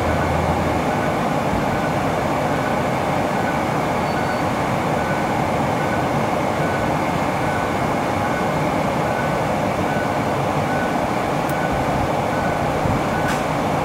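2017 Kia Niro's HVAC blower motor running steadily, with a constant rush of air from the dash vents. It stays on while the climate controls are worked: the blower is stuck on, and a new control head has not cured it. A faint electronic beep repeats about every three-quarters of a second.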